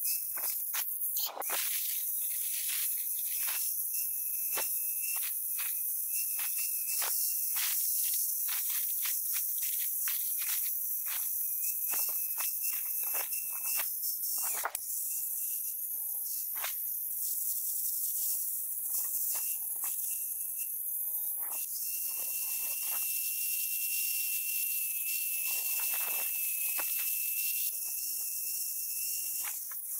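Angle grinder running with a thin steady whine, its abrasive disc grinding rust and steel off a hammer head in many short scraping passes.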